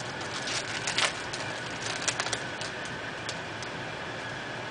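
Foil wrapper of a football card pack crinkling as it is torn open and handled, in short irregular crackles, a little louder about a second and two seconds in, over a steady hiss.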